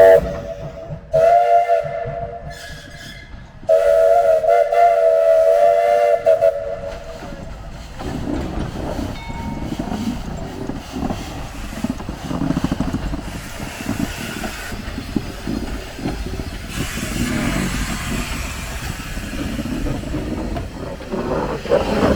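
Steam locomotive's South African tritone chime whistle, blown in two more blasts of a two-long, short, long whistle signal: one about a second in, the next at about four seconds, trailing off near seven seconds. From about eight seconds the small narrow-gauge 0-4-0T tank engine is heard running, with a steady rhythmic clatter.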